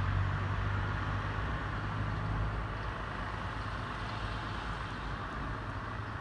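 A steady low engine hum over a constant background hiss, easing slightly about halfway through.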